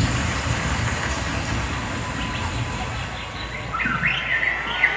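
Arena crowd noise: a steady, dense din of many voices with a low rumble, easing slightly about three seconds in. Near the end, high voices rise above it.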